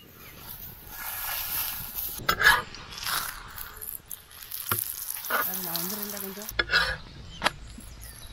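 Oil sizzling on a hot iron tawa as it is spread across the surface and a wheat parotta is laid down to fry, with a few sharp scrapes and clicks.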